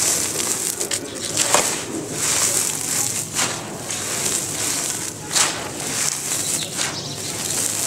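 Dry red dirt crumbled between the hands and poured in a stream onto a pile, a continuous fine hissing patter with a few sharper ticks from small lumps and pebbles landing.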